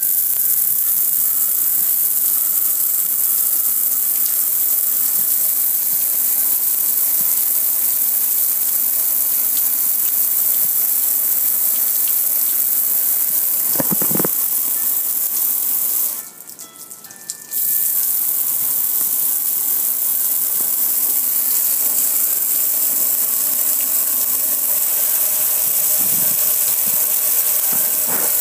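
Water spray hissing steadily onto a metal gas grill and splashing off it. The spray cuts out for about a second and a half just past halfway, a couple of seconds after a single knock.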